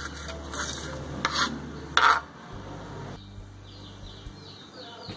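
Kitchen knife chopping and scraping chopped spring onions on a wooden cutting board: a few sharp strikes in the first two seconds, the loudest about two seconds in, then quieter.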